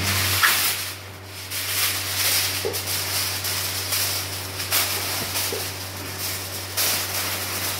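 Aluminium foil crinkling and rustling as it is pressed and folded around the rim of a cooking pot, sealing the lid so that no steam escapes, with short sharp crackles throughout.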